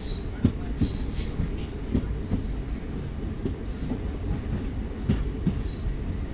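DEMU train running along a station platform, heard from its open doorway. A steady low rumble is broken by wheel knocks over the rail joints and short high-pitched screeches from the wheels every second or two.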